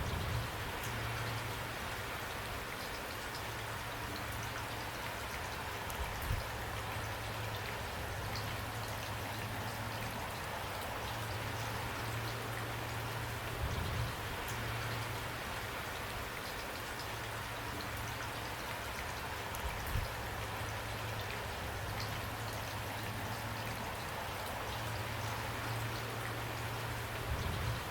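Steady rain falling, an even hiss of drops, with a brief louder tap four times.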